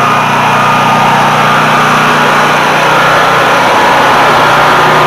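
Honda EB5000 portable generator's engine running steadily at constant speed. It runs well but its alternator puts out no power.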